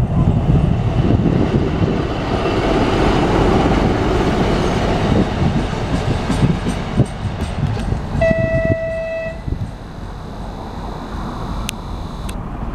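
TEM18DM shunting diesel locomotive running past with a gondola car: diesel engine noise and wheels knocking over the rails, loudest as it passes. About eight seconds in, the locomotive sounds one horn blast of about a second, and the noise fades as it moves away.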